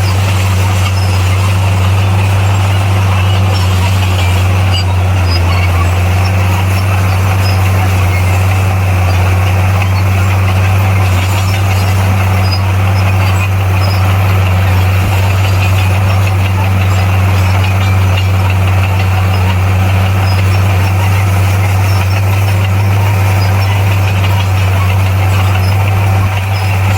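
Bulldozer's diesel engine running at a steady, unchanging pitch: a loud, low drone.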